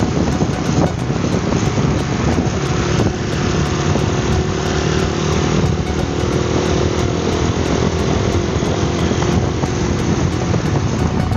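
Motorcycle engine running steadily at cruising speed, mixed with loud wind rush on the microphone.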